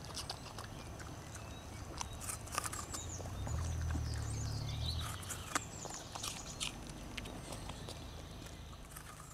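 A beagle mix crunching and chewing an apple, with sharp crunches scattered irregularly throughout. A low rumble swells about three and a half seconds in and fades a second and a half later.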